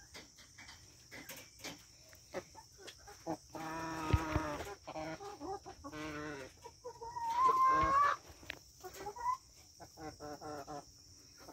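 Chickens clucking in a run of short calls, loudest between about four and eight seconds in, with one drawn-out call rising in pitch near the middle.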